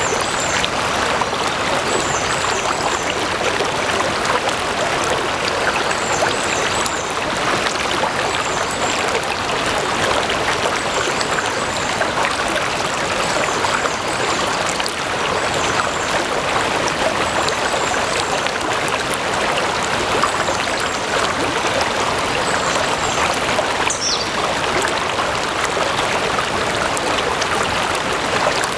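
A stream flowing steadily, water rushing and trickling over rocks in an even, unbroken wash.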